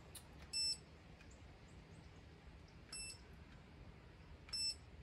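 Handheld infrared thermometer gun beeping three times, short high beeps about half a second in, three seconds in and near the end, each beep marking a temperature reading. The first beep is the loudest.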